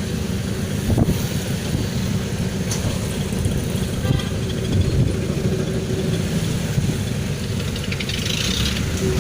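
Steady road-traffic noise: vehicle engines running with a low rumble and no sharp events.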